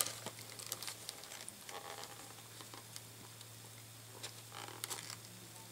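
Faint scattered clicks and soft rustles of packaging being handled and opened by hand.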